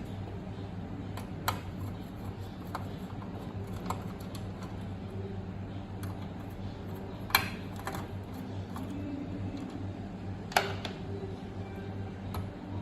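Scattered sharp clicks and small knocks of plastic and metal parts being handled while the tester board of a USB cable testing machine is taken out and swapped, over a steady low hum.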